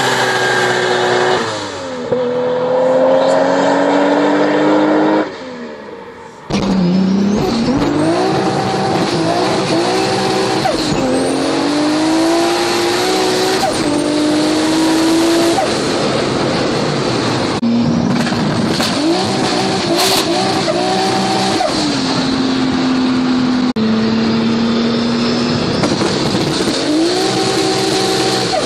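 A car doing a burnout, its engine held at high revs with the tyres squealing, until the sound drops away for about a second, five seconds in. Then a Toyota Supra's straight-six engine is heard from inside the car, accelerating hard, its pitch climbing and then dropping at each gear change.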